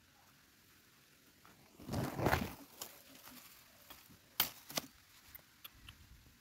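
Dry leaf litter and bamboo sticks rustling as a bamboo-and-string trap is handled. Near the middle come two sharp knocks about half a second apart, then light clicks.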